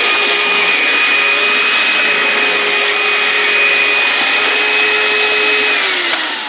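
Sanitaire Quiet Clean commercial upright vacuum running steadily on a rug with a high whine. Near the end its motor winds down, falling in pitch as it is switched off.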